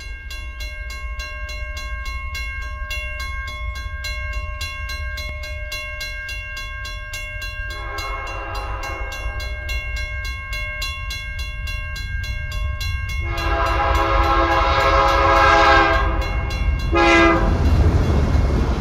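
Diesel locomotive air horn sounding a chord in the grade-crossing pattern, long, long, short, long, with the second long blast louder than the first, over the low rumble of a moving train. A steady high ringing with a quick regular pulse runs underneath.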